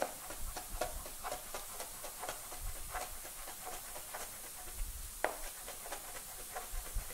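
Large kitchen knife chopping fresh epazote leaves finely on a plastic cutting board: a quick, even run of light taps, about four a second, with one harder tap about five seconds in.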